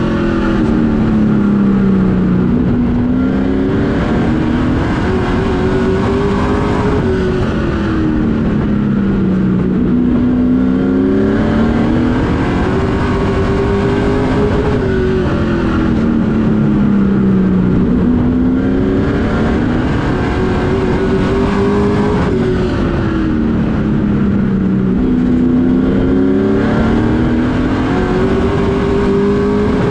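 Race truck engine heard from inside the cab, revving high down the straightaways and dropping in pitch as the driver lifts for each turn. It rises and falls four times, about every eight seconds.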